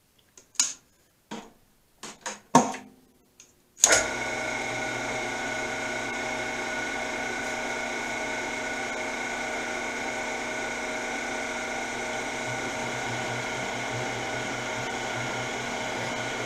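Several sharp clicks and knocks, then about four seconds in the benchtop combo lathe/mill's spindle motor starts abruptly and runs steadily with a whine made of several steady tones, spinning a 2-inch boring head for a light skim cut.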